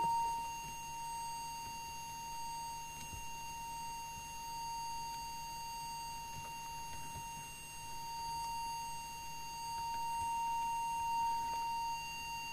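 Steady, unbroken audio test tone with faint overtones, the tone used to modulate the CB transmitter while its FM deviation is checked and set.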